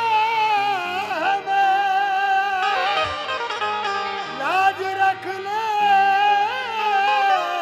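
Qawwali music without words: a wavering, bending lead melody over steady electronic keyboard chords.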